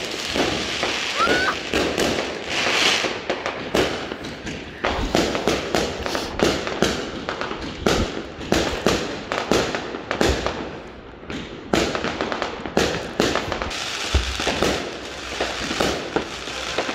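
Aerial fireworks bursting overhead: a dense, irregular run of bangs and crackles that never lets up.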